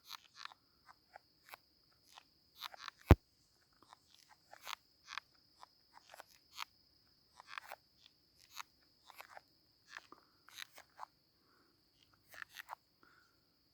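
Irregular dry clicking and crunching from inside a rotten dead pine log, most likely pine or bark beetle larvae gnawing the wood. A faint steady high-pitched tone runs underneath, and there is one sharp, louder knock about three seconds in.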